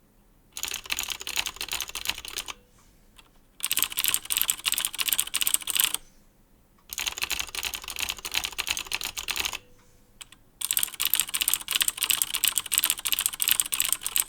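Typing on a mechanical keyboard with clicky Cherry MX Blue switches, in four bursts of rapid key clicks with short pauses between them.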